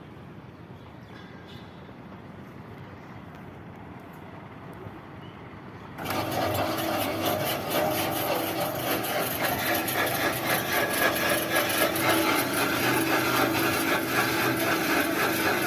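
Single-phase monkey lift (electric wire-rope material hoist) starting about six seconds in and running steadily: a motor hum under a loud, rattling, grinding noise from the winch and gearing as it lowers the load.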